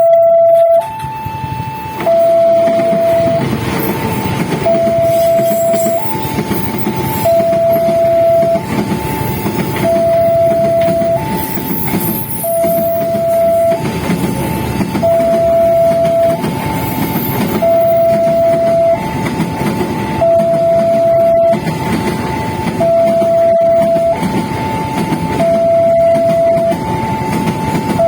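Indonesian railway level-crossing warning siren sounding a steady two-tone high-low alternation, each tone held about a second and a quarter, repeating without a break. From about two seconds in, the rumble of a passing train runs beneath it.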